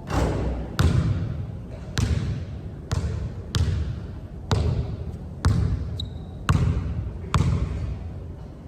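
A basketball being dribbled hard on a court: about nine loud bounces at an uneven pace of roughly one a second, each with an echoing tail. There is a brief high squeak about six seconds in.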